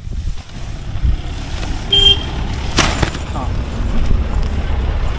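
Strong wind rumbling on the microphone while a pop-up shower tent's fabric is handled. There is a short high beep about two seconds in and a single sharp snap just under a second later.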